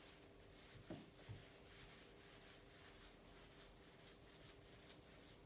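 Faint rubbing strokes of a polishing cloth working T-Cut over a painted bike fork, barely above the room tone, with two soft knocks about a second in.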